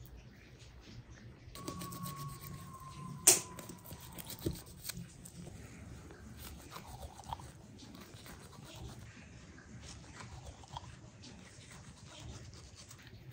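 Knife cutting raw lamb carcass and hands working the meat: quiet wet slicing and handling sounds with small scattered clicks, and one sharp click about three seconds in.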